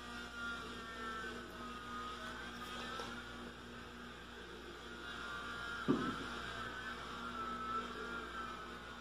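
Steady low electrical hum, with faint wavering tones in the background and a single short knock about six seconds in.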